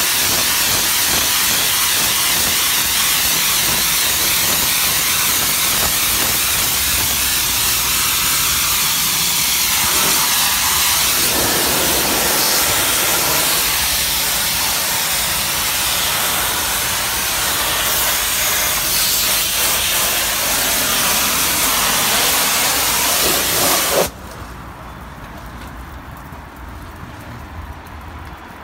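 DOFF superheated steam cleaner's lance jetting steam against brickwork: a loud, steady hiss. The steam stops abruptly about 24 seconds in, leaving a much quieter background noise.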